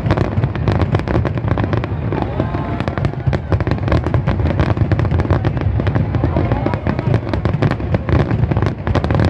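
Rapid barrage of aerial firework shells bursting, many sharp cracks a second blending into a continuous low rumble.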